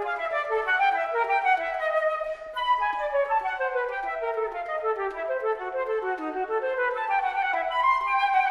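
Background music of woodwind instruments playing quick running phrases of notes that step up and down, with a short break about two seconds in before a new phrase begins.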